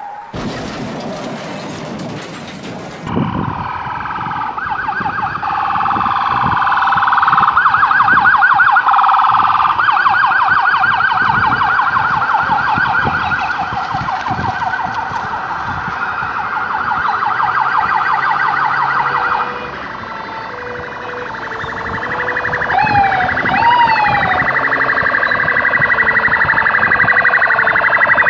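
Emergency vehicle sirens: from about three seconds in, a fast yelping siren cycles rapidly. A little over halfway through it changes to a slower rising and falling wail, with two short whoops near the end, as an ambulance and a fire engine arrive with lights flashing.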